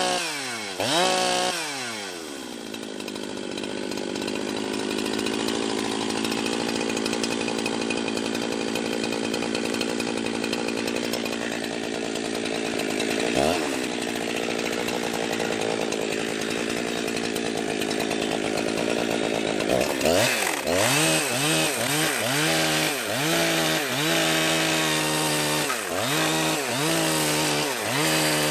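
Jonsered 2071 two-stroke chainsaw revving up and down, then held at a steady high speed for about eighteen seconds. Near the end the throttle is blipped repeatedly, the engine note rising and falling about once a second.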